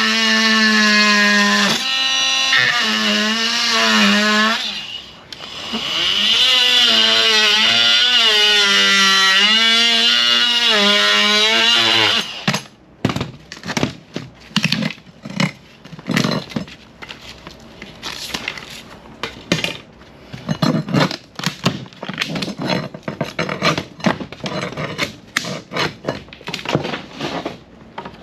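Oscillating multi-tool running in two stretches with a short break between them, its pitch wavering as it cuts into the old teak deck planking. It stops about twelve seconds in. Then come irregular knocks and clicks as the teak planks and their screws are worked loose.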